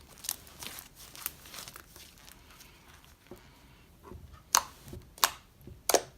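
Fluffy clay slime being squished and played with by hand, giving soft crackles and scattered sharp little pops. The pops grow louder and come closer together in the second half.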